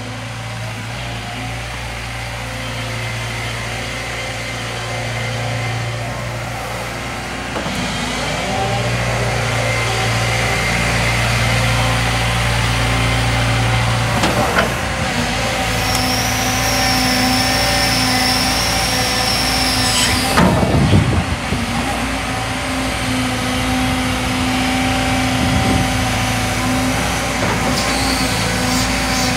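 Doosan DX140LC tracked excavator's diesel engine running steadily, growing louder about eight seconds in as the boom and bucket are worked. A high whine holds for a few seconds past the middle and ends in a brief clatter.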